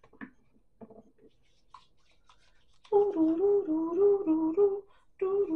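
A woman humming a simple tune, wavering back and forth between two notes, in two phrases: the first starts about three seconds in, and the second follows after a short break near the end.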